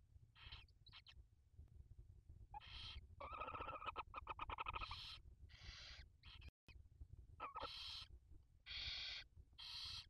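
Barn owl chicks begging with a run of short, rasping hisses, about ten over the stretch. Between about three and five seconds in, a longer chittering call with a steady pitch and rapid ticks comes in.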